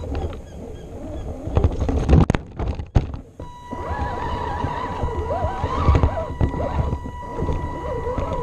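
The electric motor and drivetrain of an Axial AX10 Deadbolt RC rock crawler whine, the pitch wavering up and down as it crawls, with knocks and clatters from the chassis and tyres over rough ground. Heard up close from a camera mounted on the crawler's front.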